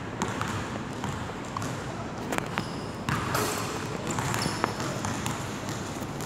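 A basketball bouncing on a hardwood gym floor: a few sharp bounces, irregularly spaced.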